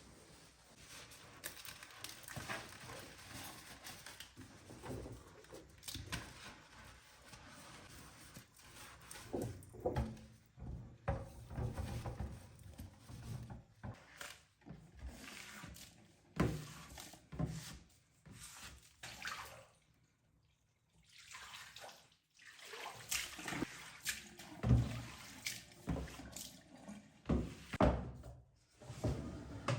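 Water running and splashing, with short knocks and clatter, as of washing and rinsing at a kitchen sink. It stops for a couple of seconds about two-thirds of the way through.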